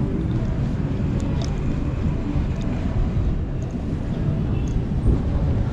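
City street ambience: a steady low rumble of traffic, with faint scattered clicks and knocks.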